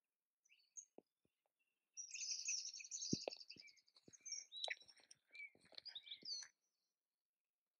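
Faint woodland birdsong: a fast run of high chirps, then several shorter calls, stopping about two-thirds of the way through. A few soft knocks sound among the calls.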